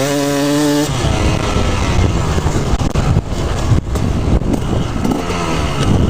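A 2016 KTM 250SX's single-cylinder two-stroke engine running under way. Its note rises over the first second, then turns rougher and dips briefly a few times in the middle.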